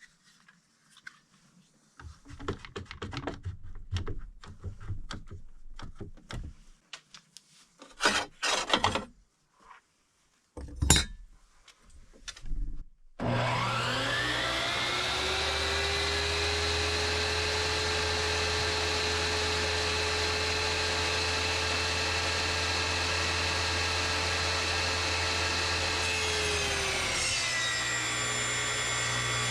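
Knocks and clunks of boards being handled, then a table saw motor starts about halfway through, winds up to speed and runs steadily. Near the end its pitch drops a little as the blade takes up the load of ripping a board.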